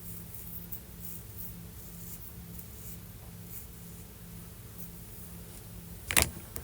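Faint scratchy snips and rustles of scissors trimming loose hair, over a steady low hum, with one loud sudden bump about six seconds in.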